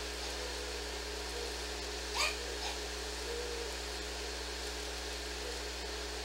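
A dog gives one short, high yelp about two seconds in, with a fainter one just after, over a steady hiss and low hum.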